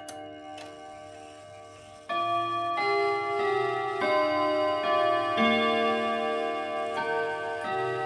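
Junghans chime clock playing its chime melody. The previous notes die away, then about two seconds in a new run of struck chime notes begins, a fresh note every half second to second, each ringing on under the next.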